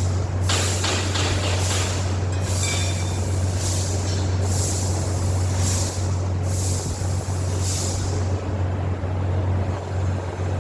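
A machine running with a steady low hum, with hissing bursts recurring every second or two over it.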